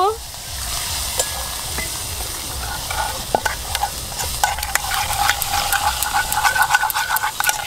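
Metal spoon stirring and scraping in an aluminium bowl, beating ground spices and yogurt into a splash of water, the spoon clicking rapidly against the bowl in the second half. Under it, a steady sizzle of onion and garlic frying in oil in a wok.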